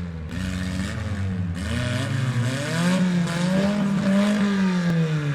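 Engines of demolition derby minivans and mini trucks revving on the track, their pitch rising and falling as they accelerate and back off.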